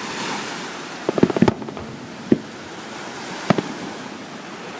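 Fireworks going off: a hissing crackle, then a quick cluster of sharp bangs about a second in, followed by single bangs spaced a second or so apart.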